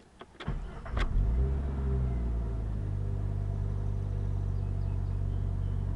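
1996 Jeep Grand Cherokee 4.0 L inline-six being started: it cranks and catches about a second in, flares up, then drops back and settles into a steady idle.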